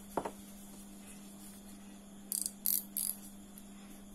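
A single knock as the fishing reel's spool is set down on a wooden bench, then three short, high, rasping clicks about two and a half seconds in from the reel's drag-knob parts being handled and taken apart.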